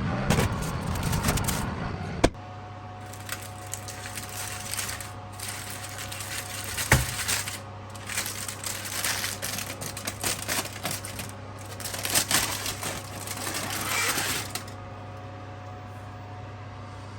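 Irregular clattering and rustling of things being handled, with two sharp clicks about 2 and 7 seconds in, over a steady low hum; the handling stops near the end.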